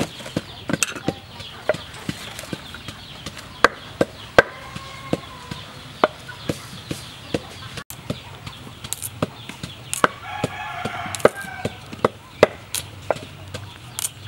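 Irregular sharp snaps and knocks as green bananas are cut from the bunch's stalk with a knife and then broken off the hand one by one onto a wooden chopping board. A chicken calls in the background about ten seconds in.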